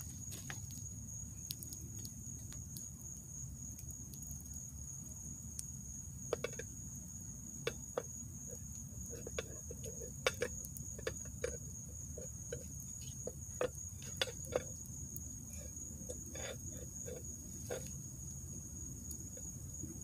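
Wood campfire crackling, with scattered sharp pops that come more often from about a third of the way in, over a steady high-pitched insect trill.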